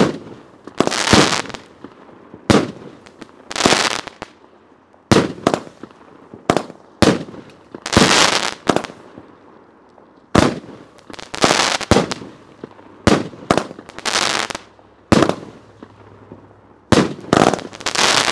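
Dakota Perch 200-gram consumer firework cake firing a rapid string of very loud shots, aerial breaks going off one to three a second, some trailing off for about half a second.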